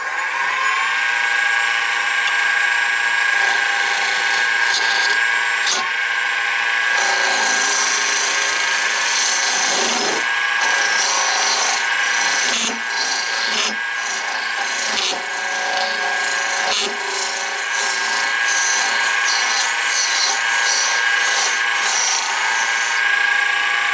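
Wood lathe motor spinning up to speed at the start, then running with a steady whine. A turning tool scrapes and cuts into the spinning wooden bottle jig in irregular strokes, cleaning out its centre.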